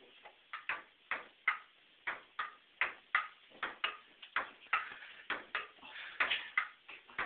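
Ping-pong ball in a fast rally, clicking as it bounces on the table and is struck back with stools in place of paddles; quick light clicks, about three a second.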